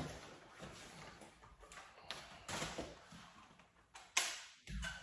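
Faint handling noises from an air rifle and its magazine being moved and fitted: a few soft knocks and scrapes at uneven intervals, the sharpest about four seconds in.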